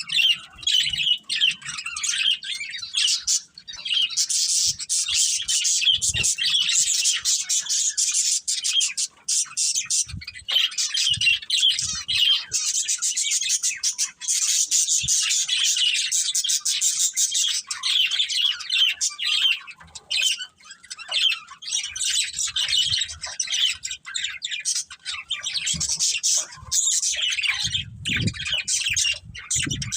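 A group of budgerigars chirping and chattering without a break, many quick overlapping calls and squawks. A few soft low thumps come through in the middle and near the end.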